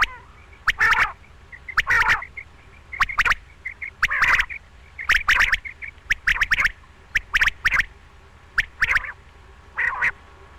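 Quail calling over and over, one short burst of rapid notes about every second.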